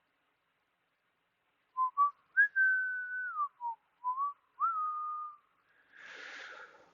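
A person whistling a few short notes of a tune, some held and some sliding up or down in pitch, followed by a short breathy exhale near the end.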